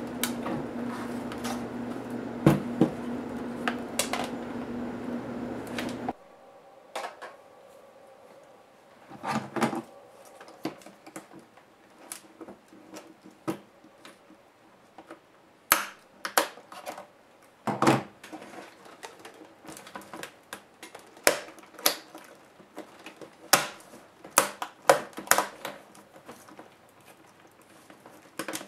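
A steady low hum with a few sharp knocks over it, cutting off suddenly about six seconds in; then scattered plastic clicks, snaps and knocks as a laptop is turned over and the cover strip above its keyboard is pried off by hand and with a pry tool.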